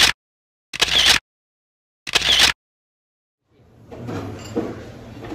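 Three short noisy bursts, each about half a second long and a second or so apart, each cut off into dead silence: an edited-in sound effect. Faint dining-room background noise fades in near the end.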